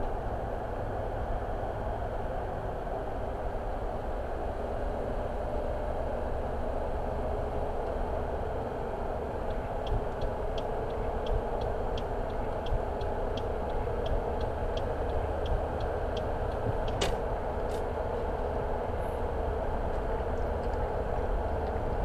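A car driving along a road, giving a steady rumble of road and engine noise. Partway through comes a run of light, evenly spaced ticks, about two to three a second, for several seconds, followed by a single sharp click.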